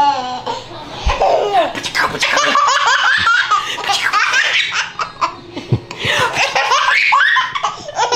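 One-year-old baby laughing hard in repeated bursts while being played with.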